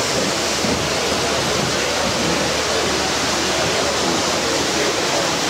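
A long train of model coal hopper wagons rolling past on the track, giving a steady rushing rumble of wheels on rails.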